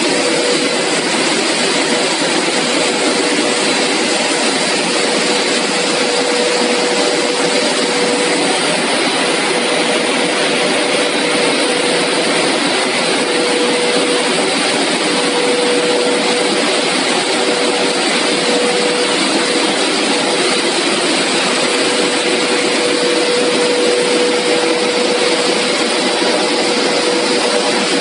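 Steady industrial noise of a running CPP cast film extrusion line's motors and blowers: an even rushing noise with a steady hum running through it.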